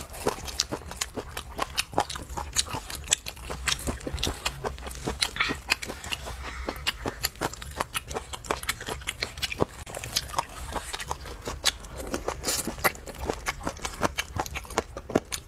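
Close-up chewing and biting on chicken feet: irregular wet smacking and crunchy clicks, several a second.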